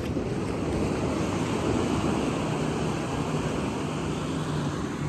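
Steady wash of sea waves on the beach, with a faint low hum underneath.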